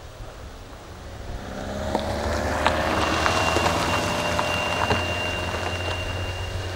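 A small van driving along a dirt forest track: its engine and tyres grow louder from about a second in, are loudest around three to four seconds, then fade as it drives off. A few sharp clicks along the way, and a thin steady high tone from about three seconds in.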